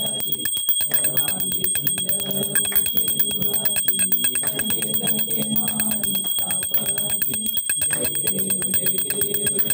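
Small brass hand bell (ghanti) rung rapidly and without pause during aarti, about ten strikes a second with a steady high ringing tone. Aarti music runs underneath.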